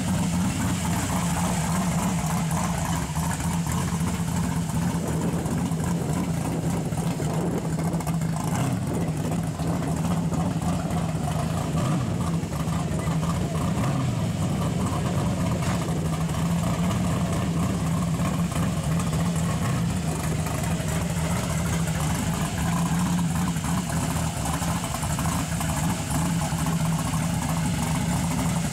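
Racing-cammed all-aluminum 427 small-block V8 in a lifted Toyota pickup, running steadily at low revs as the truck rolls slowly at idle, with a choppy engine note and no big revs.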